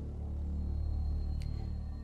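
Intro theme music holding a low, deep note, with no speech over it.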